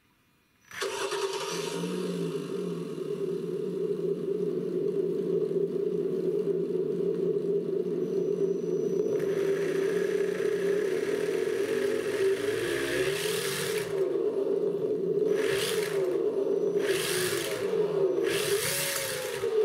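Simulated car engine sound played by a GT Power RC sound module through its small speaker. It starts abruptly about a second in, settles into a steady idle, then revs up and down in the second half with several short bursts of hiss.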